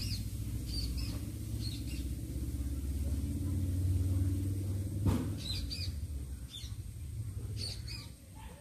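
Small birds chirping, short high calls in little groups every second or so, over a steady low rumble that eases near the end. A single sharp knock about five seconds in.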